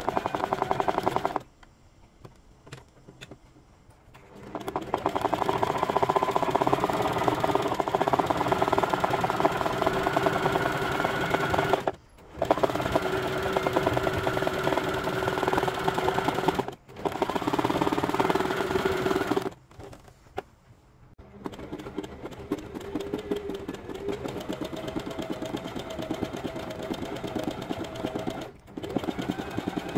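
Domestic sewing machine running at speed on a zigzag stitch in free-motion embroidery, the needle going up and down rapidly. It runs in spurts with several pauses: one of about three seconds near the start, a two-second one about two-thirds of the way through, and short breaks in between.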